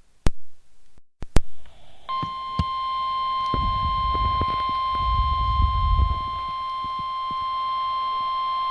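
A few sharp clicks, then, about two seconds in, the NOAA Weather Radio 1050 Hz warning alarm tone starts and holds steady: the alert that signals a new warning is about to be read. A low rumble sounds underneath it for a few seconds midway.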